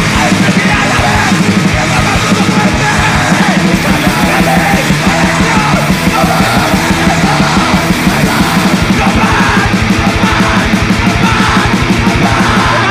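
Emoviolence/screamo band playing at full tilt: harsh distorted guitars and very fast, driving drums under screamed vocals.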